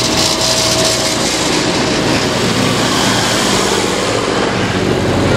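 Vintage tractor engines running as a procession of tractors drives past, with a David Brown 995 three-cylinder diesel passing close at the start and more tractors following. The engine hum is steady throughout.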